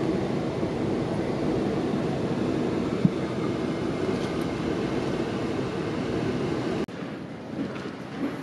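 Steady rumble of cabin noise inside a British Airways Boeing 747-400 taxiing after landing, with one brief knock about three seconds in. Near the end it cuts off suddenly to a much quieter indoor background.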